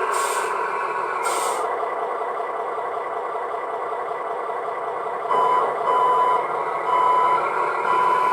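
Radio-controlled Mitsubishi Fuso model truck's engine sound running steadily, with two short hisses in the first two seconds. About five seconds in, its reversing beeper starts, a single tone repeating about one and a half times a second.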